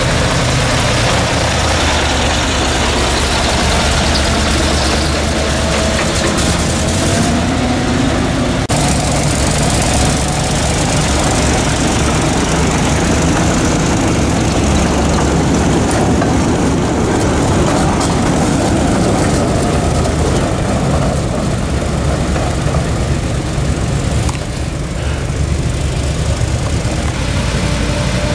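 Engine of a ride-on miniature park locomotive running steadily as the train travels along the track, a continuous low rumble with no pauses.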